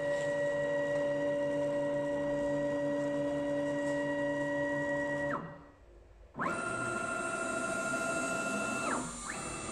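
CNC router's axis drive motors whining with steady tones as the gantry carries the spindle head across the bed. The sound drops out for about a second halfway through, then two more moves follow, each whine gliding up in pitch as it starts and down as it stops.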